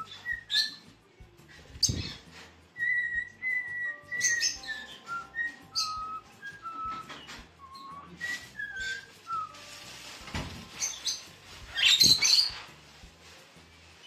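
A clear whistled tune of short notes stepping up and down runs through, with sharp chirps and squawks from pet parrots (rosy-faced lovebirds and a cockatiel). The loudest squawk comes about twelve seconds in.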